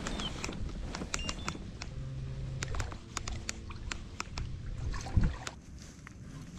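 Sounds aboard a fishing kayak on the water: scattered sharp clicks and light knocks, with a heavier thump about five seconds in.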